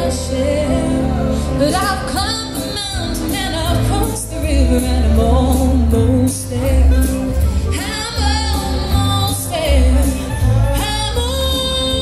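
A woman singing a song live into a handheld microphone, amplified through a stage sound system, over musical accompaniment with a steady bass line and beat.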